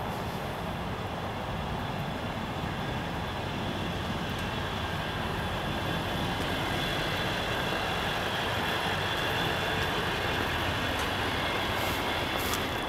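Ford pickup truck's engine idling: a steady running sound with a thin high whine over it that stops near the end.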